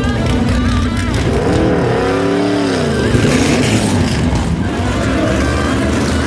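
Stock Car Pro Series race car engine running hard at high revs, its pitch rising and then falling about two seconds in.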